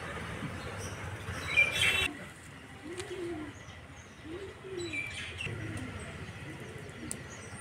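A bird cooing, a run of low rising-and-falling notes about once a second from about three seconds in, with small birds chirping faintly. A short loud burst of sound comes about a second and a half in.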